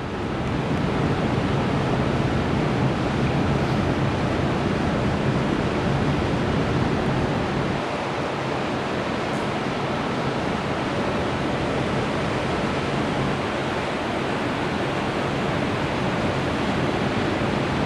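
Steady, even rushing roar of a city street's background noise, with a faint low hum underneath.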